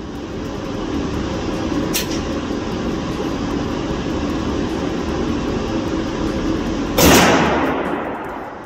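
A single 10mm pistol shot from a Glock 20 firing Underwood Xtreme Defender ammunition into ballistic gel, a sudden loud crack about seven seconds in that rings off the range walls for about a second and a half. Before it there is a steady rushing background.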